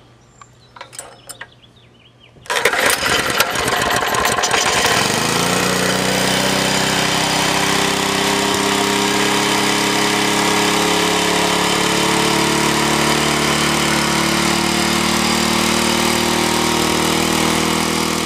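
A small single-cylinder gasoline engine, drawing its fuel as vapour through a GEET fuel reactor and bubbler, starts up about two and a half seconds in. It runs rough for a couple of seconds, then settles into steady, even running.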